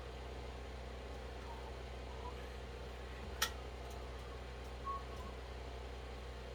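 Quiet room tone with a steady low hum, broken by one sharp click about halfway through and a faint soft knock a second and a half later.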